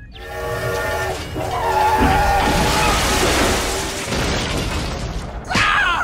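Train horn sounding a steady chord for about a second, followed by several seconds of dense crashing and shattering noise, with a quick sweeping whoosh near the end.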